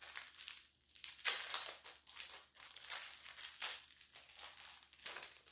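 Plastic bubble wrap crinkling and rustling as a small item is unwrapped by hand, in irregular crackly spurts, loudest about a second in.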